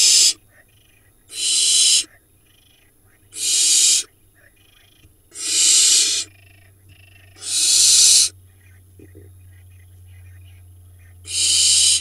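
Barn owl nestlings making harsh, hissing screech calls, each about two-thirds of a second long. They come about every two seconds, five times, with a longer pause before the last one near the end.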